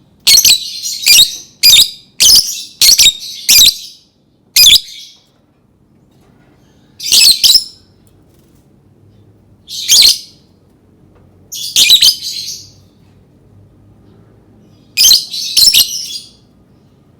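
Lovebird calling in bursts of high-pitched chirps: a quick run of about six in the first five seconds, then a burst every two to three seconds.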